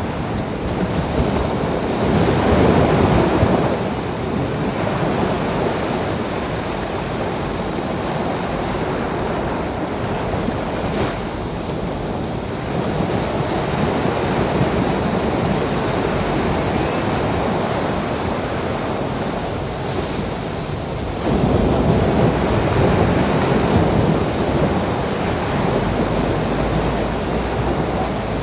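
Sea waves breaking and washing on a shore, with wind noise on the microphone; the surf swells louder at about two to four seconds in and again from about 21 to 25 seconds.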